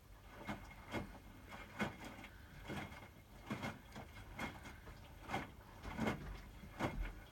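Hotpoint WMFUG 942 front-loading washing machine tumbling its load on the wash, wet laundry and water sloshing in the drum with a soft swish about every 0.8 seconds, starting just after the beginning.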